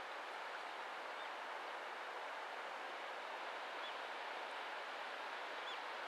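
Steady outdoor background hiss, with a few faint, short, high chirps of a small bird about a second in, about four seconds in, and near the end.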